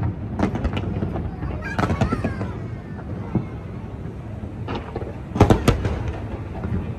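Fireworks bursting: clusters of sharp bangs about half a second in, around two seconds in and near five seconds, the loudest cluster at about five and a half seconds, over a steady murmur of crowd voices.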